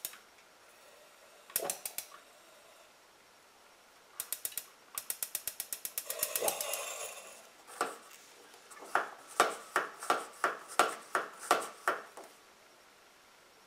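Coleman NorthStar gasoline lantern's push-button igniter clicking in quick runs while the fuel valve is being opened to light the mantle. There is a short hissing rush about six seconds in, and a run of louder, ringing clicks from about eight to twelve seconds.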